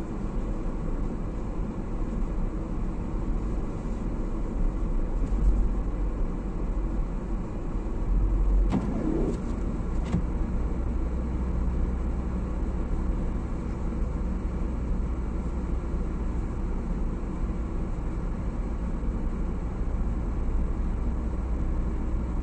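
Steady low rumble of a car's engine and tyres heard from inside the cabin, driving slowly on a snow-covered road. A couple of faint clicks and a short pitch glide come about nine to ten seconds in.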